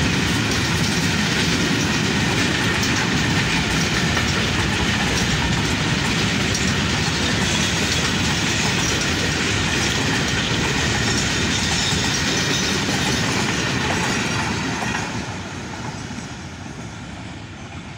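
Freight train's container wagons rolling past on the rails, a steady rolling noise with wheels clicking over the rail joints. About fifteen seconds in the sound falls away as the last wagon passes and the train moves off.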